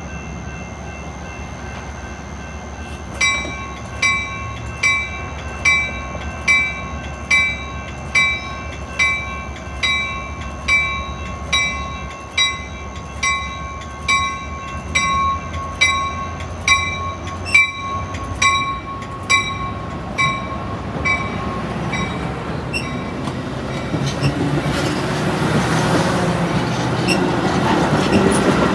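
A bell rings steadily, a little more than once a second, as a Metra bilevel commuter train pushed by two F40PH-3 diesel locomotives starts to depart. After about two-thirds of the way through, the bell stops and the rumble of the moving train grows louder as the cars roll past.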